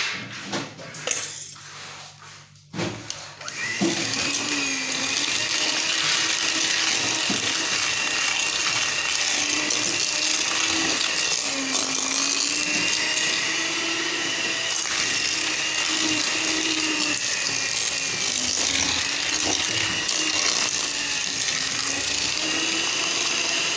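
Electric mixer motor running steadily, its pitch wavering slightly as it beats the cake batter (butter and sugar being creamed). It starts about four seconds in, after a few knocks and clicks.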